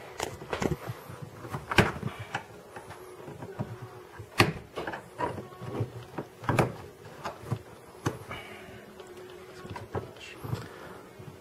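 Screwdriver prying at plastic retaining clips and trim in a car interior: irregular sharp clicks and knocks, a few every couple of seconds, the loudest about halfway through.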